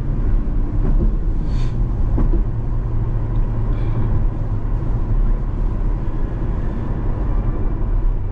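C8 Corvette's V8 engine droning steadily with tyre and road noise while cruising at a constant speed.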